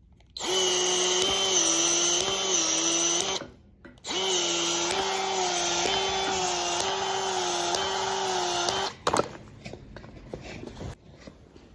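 Power drill running in two bursts, about three seconds and then about five seconds, with a short stop between. Its steady whine dips slightly in pitch now and then. A few clicks and knocks follow.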